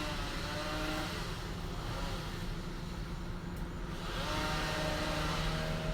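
Chainsaw engine running, easing off about two seconds in and revving back up about four seconds in.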